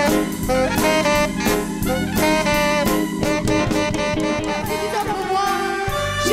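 Live jazz band playing an instrumental passage, led by horns (saxophone and trumpet) over a drum kit and keyboards.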